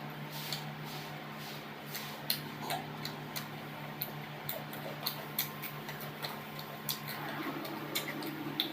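Close-up eating sounds: irregular small clicks and smacks of chewing and utensils, over a steady low hum.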